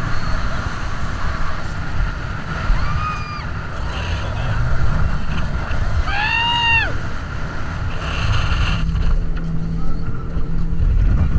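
Speedboat running fast, with a heavy rumble of engine, water and wind on the microphone. A passenger gives a short high scream about three seconds in and a longer, louder one a few seconds later.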